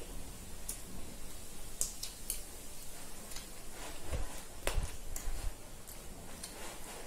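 Eating sounds: wet mouth smacks and chewing, with scattered short clicks, as chicken curry and rice are eaten by hand from steel plates. A few soft low bumps come a little past the middle.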